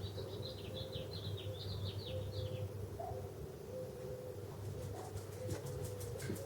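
Birds chirping in quick high notes for the first couple of seconds, with repeated short low calls, over a steady low hum; a fast, even ticking of about five clicks a second starts near the end.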